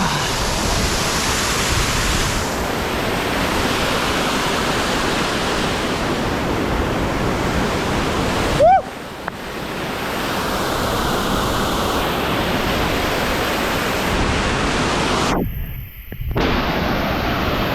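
Waterfall rushing steadily, a dense, even roar of falling water. The rush breaks off briefly twice, about nine and sixteen seconds in, the first time with a short squeak.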